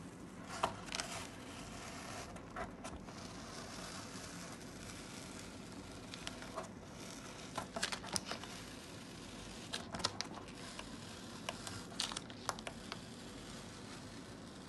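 Masking tape being peeled off watercolour paper and crumpled in the hand: short, irregular crackles and rustles, some sharper than others.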